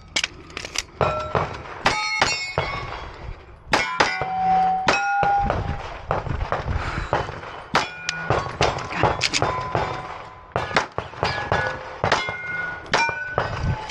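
Rapid 9mm pistol fire at steel targets: a string of shots, with many hits answered by the ring of a struck steel plate, each plate ringing at its own pitch. There is a short break in the firing about halfway through before the shooting picks up again.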